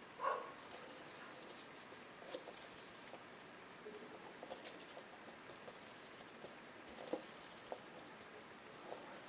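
Faint scratching and small ticks of a thin rigger brush being worked over watercolour paper, with a short louder noise right at the start.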